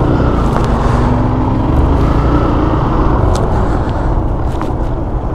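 Motorcycle engine running steadily while riding, with a heavy low rumble of road and wind noise; the engine pitch rises a little and then eases in the first few seconds.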